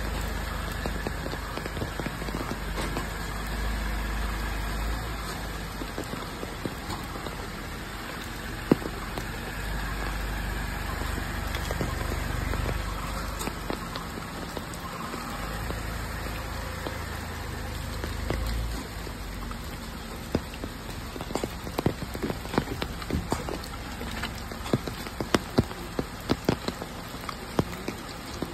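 A Tata Punch's three-cylinder petrol engine running at low speed as the car creeps over wet, muddy ground, a steady low rumble that stops about two-thirds of the way through. After that, scattered drops of water tap sharply on the leaves and ground.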